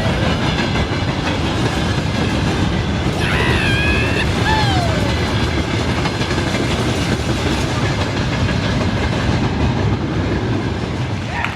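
Train running along the track: a steady, even noise throughout, with a few brief higher gliding tones about three to five seconds in.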